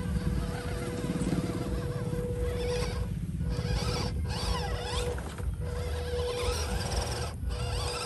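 Electric motor and gearbox of an RC Toyota Land Cruiser pickup truck whining as it drives through sand. The whine rises and falls with the throttle and cuts out briefly several times.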